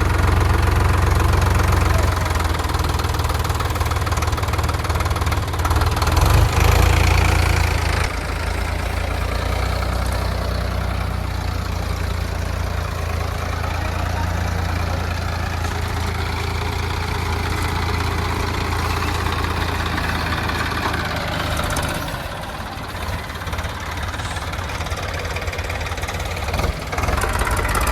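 JCB 3DX backhoe loader's diesel engine running while it works, louder for the first eight seconds, then settling to a steadier, lower level. It drops a little about two-thirds of the way in and picks up again near the end.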